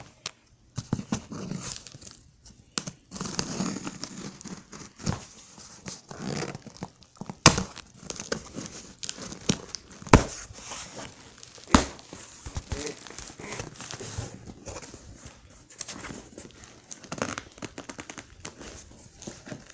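A cardboard shipping box being opened by hand: packing tape tearing and cardboard and its contents crinkling and rustling, broken by sharp knocks and clicks, the loudest about seven, ten and twelve seconds in.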